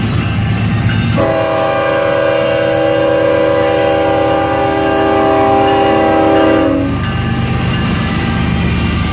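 A locomotive horn sounds one long multi-note chord, starting about a second in and cutting off after about six seconds, over the steady low rumble of the train.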